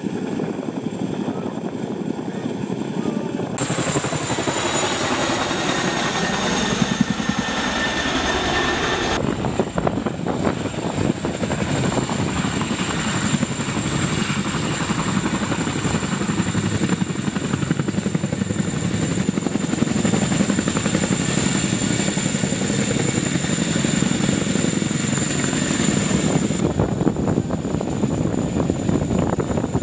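Boeing CH-47 Chinook tandem-rotor helicopter hovering low, a steady rapid rotor chop under a high, constant turbine whine. The sound shifts abruptly twice in the first ten seconds or so.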